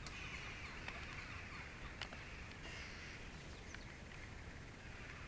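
Faint outdoor background: a steady high hiss with low rumble underneath, broken by four sharp clicks at irregular intervals.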